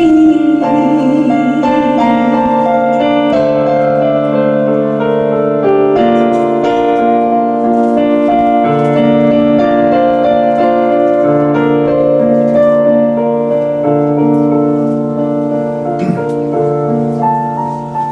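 Keyboard playing a slow instrumental outro in a piano sound: sustained chords that change every second or so. A held sung note with vibrato trails off just after the start, and the last chord begins to die away near the end.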